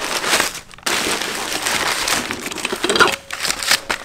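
Brown kraft packing paper crinkling and rustling as hands dig through a cardboard box of suspension parts, with a short lull just before a second in.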